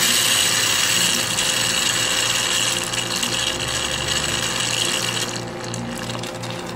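Loud hiss of pressurized gas escaping at an air-conditioning line fitting. It starts abruptly and thins out after about five seconds, over a steady low machine hum.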